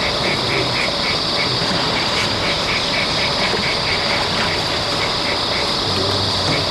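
Steady outdoor ambience: a continuous high hiss, with runs of short, evenly repeated calls at about four a second.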